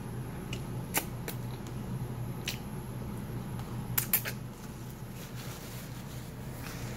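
Eating noises from a person chewing noodles picked up by hand: a few short, sharp mouth clicks and smacks, the loudest a close pair about four seconds in, over a steady low hum.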